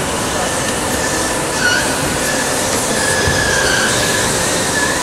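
Waste-sorting line running: its conveyors and machinery make a steady, loud noise, with high squeals that come and go.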